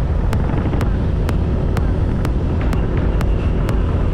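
Wind buffeting the microphone over the steady low drone of a motorbike being ridden, with a sharp tick repeating about twice a second.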